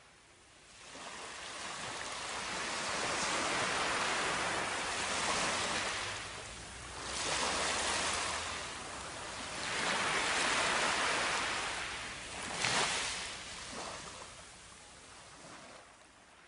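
Surf washing up a sandy beach: a hiss of waves that swells and falls away several times, fading in at the start and out near the end.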